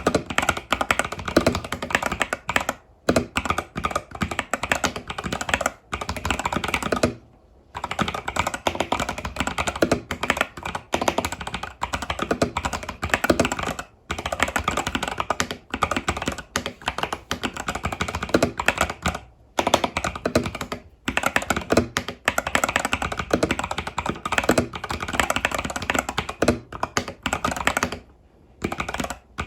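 Fast, continuous typing on an Epomaker TH80 Pro mechanical keyboard with Epomaker Budgerigar tactile switches and stock keycaps: a dense stream of key clacks, broken by short pauses about a quarter of the way in, around two-thirds of the way, and near the end.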